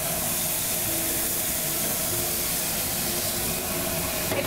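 White wine sizzling in a hot sauté pan with floured chicken breast, crab cake and shrimp, a steady hiss.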